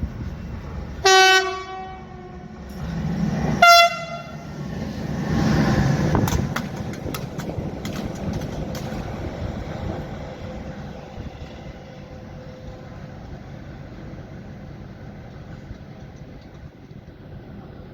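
Railway locomotive horn giving two short blasts, the second shorter and higher, then a train running past: a loud rumble with a run of clicking wheels over the rails, fading slowly.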